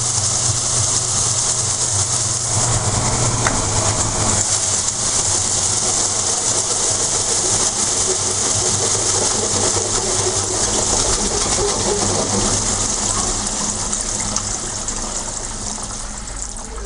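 Electrolux TOP8 top-loading washing machine spinning, with steady running noise and rushing water, and the creaking the owner hears when the drum shakes, which he thinks could come from the suspension, the bearing ring or the springs. The level eases slightly near the end.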